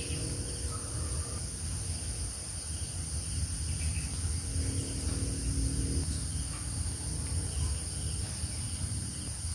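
Background noise without speech: a steady high-pitched drone over a low rumble.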